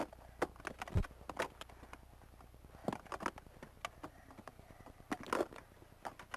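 Zulu fighting sticks clacking against each other and against cowhide shields in stick-fighting practice: a scatter of sharp, irregular knocks, with a dull thud about a second in.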